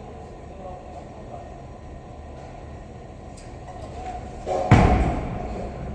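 Bowling ball rolling down the lane, then crashing into the pins about four and a half seconds in.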